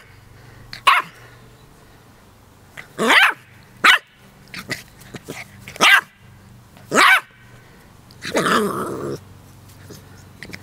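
Keeshond puppy barking in play at a dandelion seed head: about six short, high barks with gaps between them, the last one longer.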